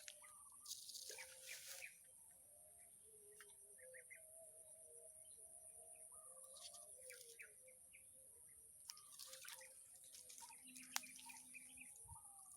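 Faint birds chirping and calling over a steady high insect buzz, with light rustling and one sharp click about eleven seconds in.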